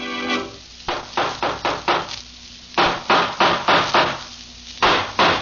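Rapid knocking on a wooden door, a radio-drama sound effect: three runs of quick raps, about five a second, with short pauses between.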